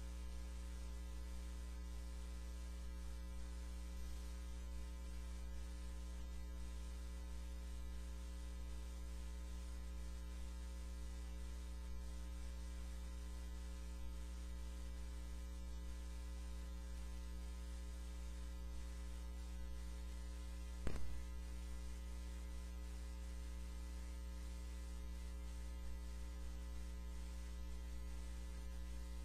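Steady electrical mains hum with a faint hiss, broken once by a brief click about 21 seconds in.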